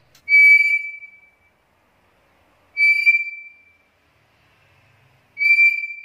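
Black-capped lory whistling three times, each a clear whistle held on one pitch for about a second before fading, spaced about two and a half seconds apart.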